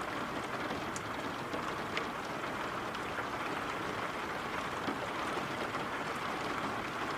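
Steady rain falling, an even hiss of drops with a few sharper drop ticks.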